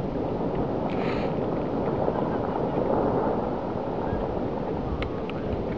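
Large rockfall of rock and snow crashing down a mountain cliff: a steady, low rushing rumble.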